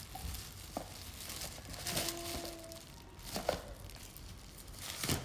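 Gift packaging crinkling and tearing as it is unwrapped by hand, in a few short rustling bursts about two, three and a half, and five seconds in.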